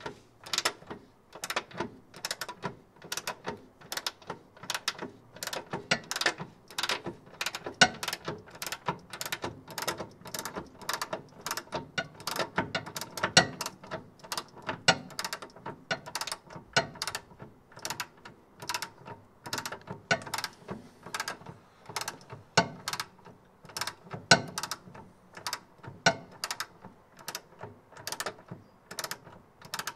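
Long-handled socket ratchet clicking its pawl on each back-swing as a bolt at the front lower control arm is turned by hand, stroke after stroke at about two clicks a second.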